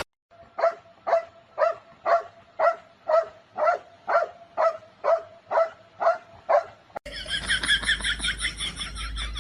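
A dog barking in a steady series, about two barks a second. About seven seconds in, it cuts off suddenly and a quicker run of higher-pitched repeated calls takes over.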